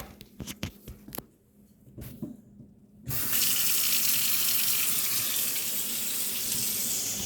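A few light knocks and clicks, then about three seconds in a kitchen faucet is turned on and water runs steadily into the sink, testing a newly installed garbage disposal.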